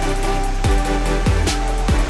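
Background music with a beat and deep bass notes that slide downward.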